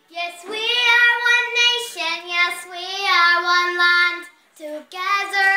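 A young girl singing her own song unaccompanied, in long held notes, with a short break about four seconds in.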